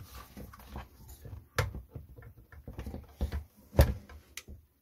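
Plastic chainsaw handle and housing parts being handled and pressed together: a run of irregular clicks and knocks, the loudest a little before the end.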